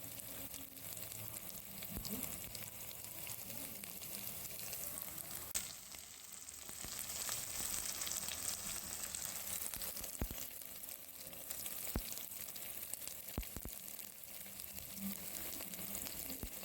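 Food sizzling steadily in a hot pan as it is stirred, with a few sharp knocks along the way.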